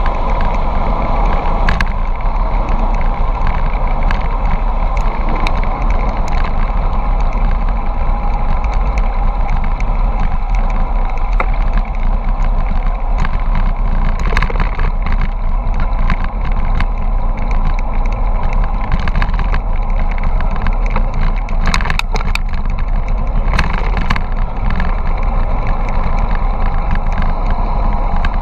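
Wind rushing over an action camera's microphone during a fast bicycle descent, a loud steady rush with tyre noise on the asphalt underneath. A few sharp clicks come through, several close together about three quarters of the way through.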